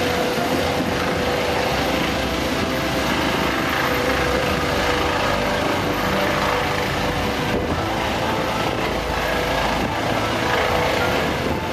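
Eurocopter EC135 air-ambulance helicopter lifting off and climbing away: loud, steady noise of its twin turbines, main rotor and shrouded Fenestron tail rotor.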